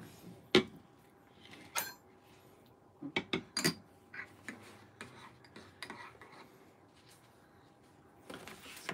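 Ceramic espresso cup and teaspoon clinking and knocking: the cup set down on a wooden table about half a second in, then scattered light clinks, with a quick run of them around three seconds in.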